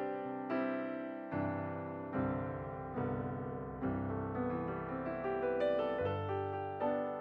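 Slow, gentle solo piano background music: single notes struck about once a second over held chords that change a few times.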